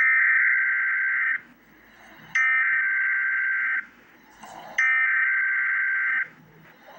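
Emergency Alert System SAME header: three bursts of digital data tones, each about a second and a half long and about a second apart, encoding the alert's event type, area and time.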